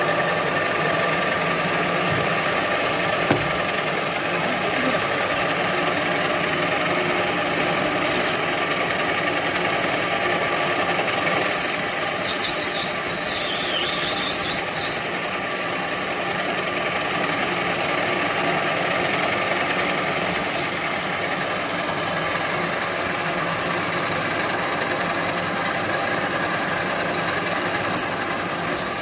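Capstan lathe cutting a brass workpiece: a steady, loud rasping as the tool scrapes the turning brass, with high-pitched squeals breaking in a few times, longest from about 11 to 16 seconds in.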